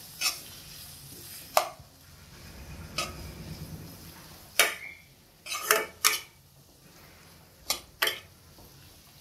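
A spoon knocking and scraping against a non-stick wok as chopped tomatoes and onions are stirred, with about eight sharp clacks spread irregularly through. Under them is a faint sizzle that dies down after the first few seconds.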